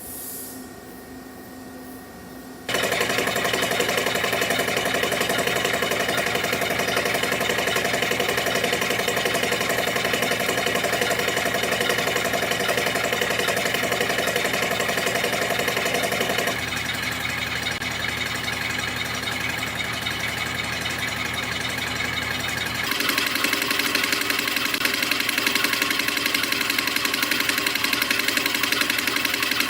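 CNC spring coiling machine running at high speed, coiling 0.4 mm wire into variable-pitch compression springs: a loud, very fast, dense mechanical chatter. It starts about three seconds in after a low machine hum, turns quieter about halfway through, and grows loud again later.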